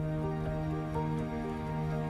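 Soft background music: a long held low note under a slow line of sustained higher notes.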